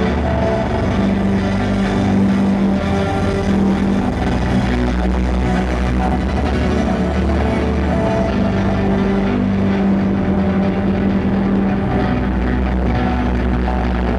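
Live band playing an instrumental passage without singing: long held low notes over a steady bass, loud through the club's PA.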